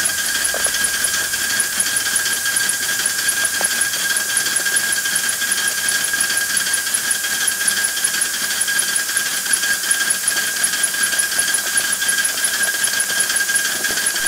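Home-built 3/4-inch-scale Heisler model steam locomotive running on compressed air on a test stand: a steady hiss with a high whine and a fast, even ticking from its cylinders, rods and geared drive. It is running in and smoothing out somewhat.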